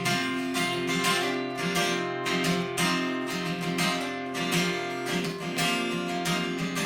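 Acoustic guitar strummed in a steady rhythm, with no singing over it.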